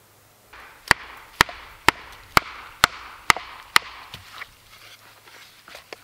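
A wooden mallet strikes seven times, about twice a second, on the metal head of a hand-held splitting tool, driving it into a log on a stump to split the wood. Lighter knocks and crackles follow.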